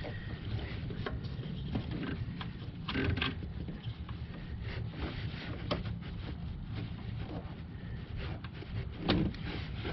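Hands working a new EVAP purge solenoid into its mounting hole in a car's engine bay: scattered small plastic clicks and knocks, over a low steady rumble, with the firmest knocks about three seconds in and near the end.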